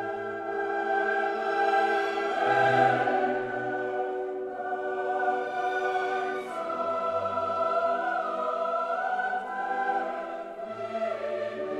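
Background music: a choir singing slow, long held chords.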